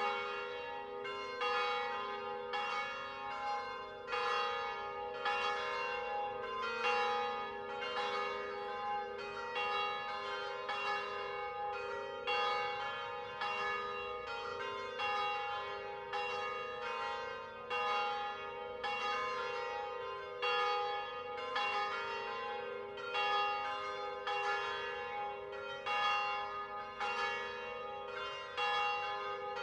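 Three middle bells of a ten-bell De Poli concert swinging in a full peal (distesa). Their strikes overlap in a continuous, even run of about one and a half strikes a second, each stroke ringing on into the next.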